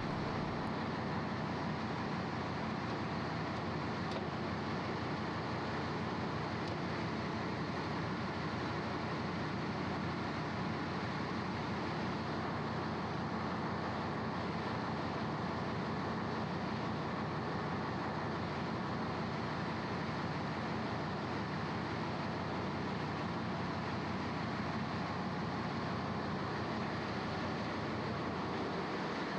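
Steady ship engine-room machinery noise, an even unbroken din with no changes.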